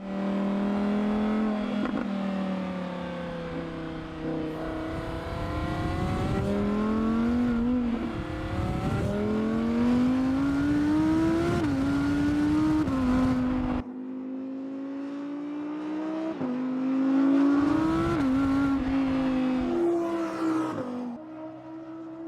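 Audi R8 GT's naturally aspirated 5.2-litre V10 accelerating hard, its pitch climbing and then dropping back at each upshift, several times over. About 14 seconds in the sound changes abruptly, as at a cut, then climbs through the gears again.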